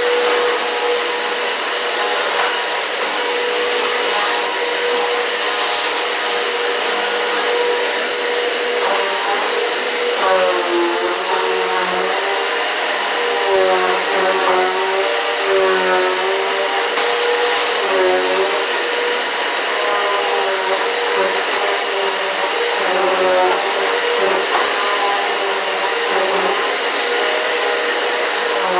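Eureka PowerSpeed upright vacuum cleaner running steadily with a high motor whine. From about a third of the way in, its pitch wavers up and down as it is worked across the floor, with a few brief bursts of hiss.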